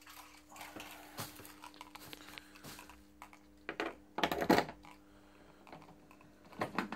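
Sharp plastic clicks and clattering from handling the E-Babetta scooter's front storage box and its keyed lid lock. The loudest cluster of clicks comes about four seconds in, with more near the end.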